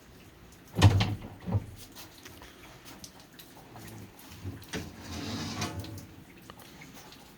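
Handling noises on a stopped 24-inch lapidary rock saw: a loud clunk about a second in, a lighter knock just after, scattered small taps, and a brief rustling scrape around the middle.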